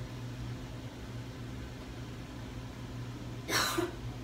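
A steady low hum fills the room. About three and a half seconds in comes one short, sharp breath from the person applying lipstick.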